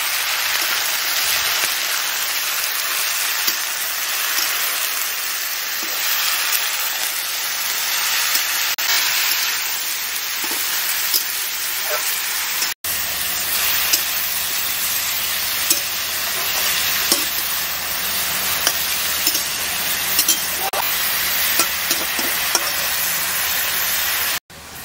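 Sliced ridge gourd and potatoes sizzling in hot mustard oil in a metal wok, stirred with a steel spatula that scrapes and clicks against the pan now and then. The steady sizzle breaks off for an instant about halfway through.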